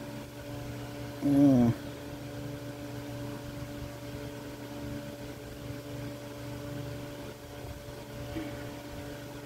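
A steady low hum with a few fixed pitches, like a running appliance or fan. A man makes a short vocal sound about a second and a half in.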